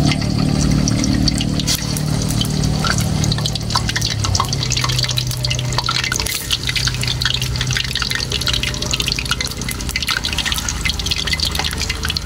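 Blocks of tofu sizzling and crackling in hot cooking oil in a wok, with thick, irregular spattering that grows denser after the first couple of seconds as more pieces are slid into the oil.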